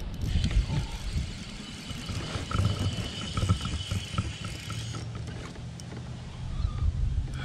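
Wind rumbling on the microphone and water around a fishing kayak. About two seconds in, a run of faint quick ticks comes as the fishing reel is cranked.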